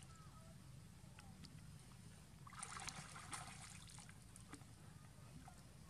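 Faint water sloshing and trickling as a macaque shifts in a shallow pond, with a short splashy burst about halfway through and a few small clicks over a low steady rumble.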